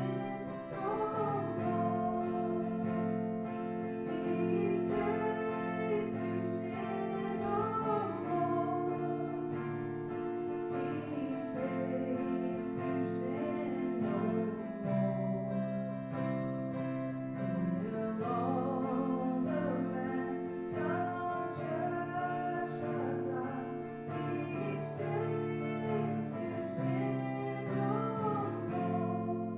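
Worship music: singing over held instrumental chords.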